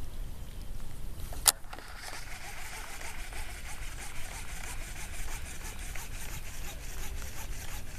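A sharp click about one and a half seconds in, then the steady, fast ticking whirr of a fishing reel being cranked as a lure is retrieved.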